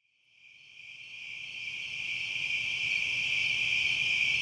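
Steady, high-pitched chorus of insects, fading in over the first two seconds and then holding steady.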